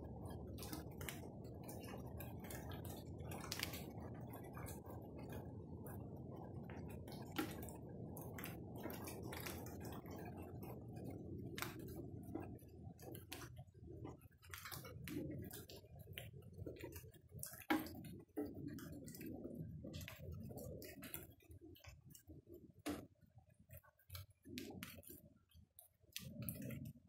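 Faint rain dripping: irregular tapping of drops over a steady low rushing noise, which breaks up about halfway through and leaves scattered drips and patches of noise.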